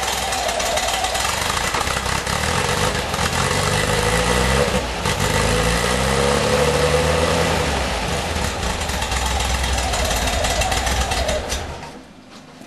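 1978 VW Type 2's air-cooled flat-four engine idling roughly, its speed rising and falling for a few seconds, a rough idle that the owner says happens when the engine is cold. The engine sound stops near the end.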